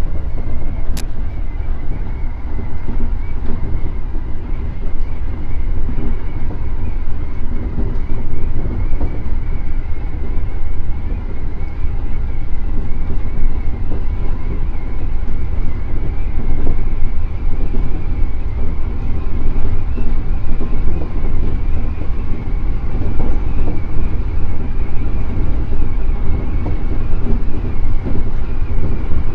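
JR East E231 series 1000 electric multiple unit running along the line, a steady rumble of wheels on rail with a faint steady whine above it. A single sharp click comes about a second in.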